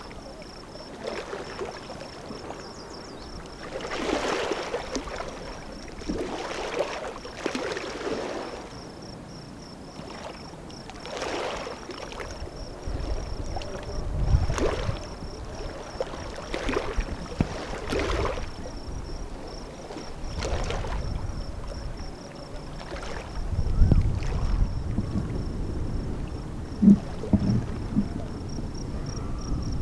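Small waves lapping irregularly at a rocky lake shore, a splash every second or two, with gusts of wind rumbling on the microphone a couple of times.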